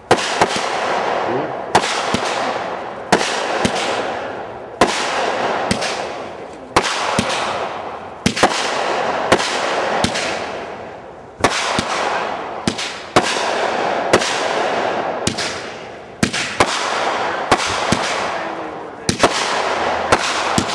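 Multi-shot consumer firework firing shot after shot, about one every second and a half. Each shot is a sharp pop followed by a hissing rush that fades before the next.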